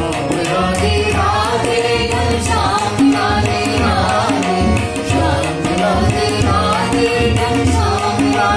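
A man and a young woman singing a Hindi Radha-Krishna bhajan together, with a hand drum keeping a regular beat under the voices.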